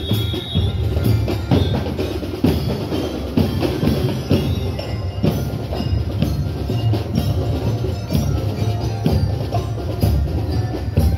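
Marching band playing a march: snare and bass drums keep a steady marching beat of about two strokes a second, with a bell-like melody over them.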